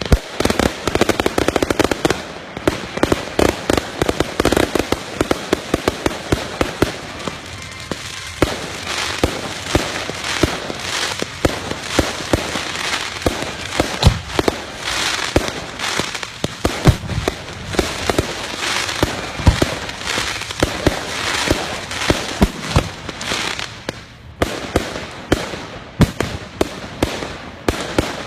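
Fireworks display: a continuous barrage of bursts and sharp bangs with crackling, turning into a rapid string of closely spaced reports over the last few seconds.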